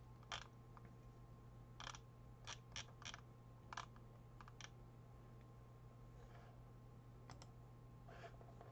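Faint, sharp clicks of a computer mouse, about a dozen at irregular intervals with a quick pair about seven seconds in, over a faint steady hum.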